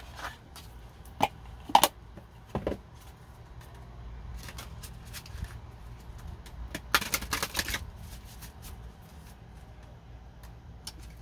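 A deck of tarot cards being handled and shuffled: a few separate card snaps in the first three seconds, then a quick run of rapid flicks about seven seconds in.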